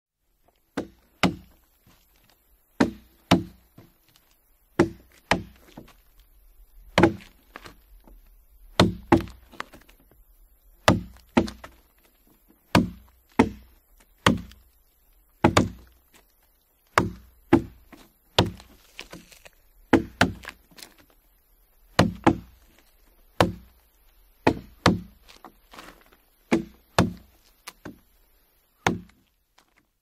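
Two adzes chopping into a tree in turn: about thirty solid wooden blows, often in quick pairs, each with a short ring, over a very clean, quiet background. The blows stop about a second before the end.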